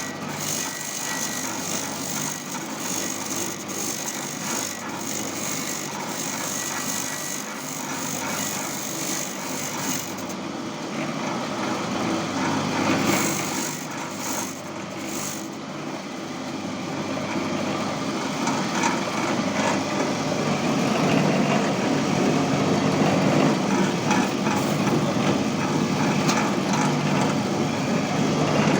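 Satay-skewer sharpening machine running: a steady motor hum with the rough scraping of wooden skewers being ground to a point. The sound changes about a third of the way in and grows louder for the last third.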